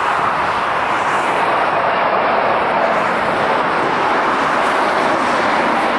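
Four-engined Airbus A380 on final approach with its gear down, its jet engines making a loud, steady rushing roar.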